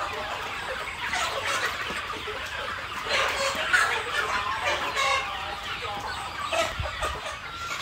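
A flock of native village chickens clucking and calling over one another, many short calls overlapping without a break.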